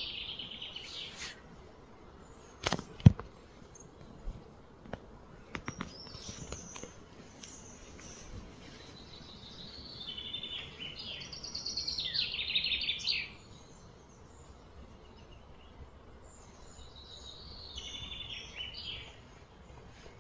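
Songbirds singing in three bursts of rapid, repeated high notes, over a steady outdoor background. A few sharp knocks come about three seconds in, one of them the loudest sound here, with fainter clicks in the next few seconds.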